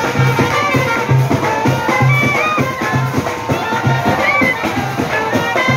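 Live street band playing festive music: saxophones and clarinet carry the melody over a steady drum beat.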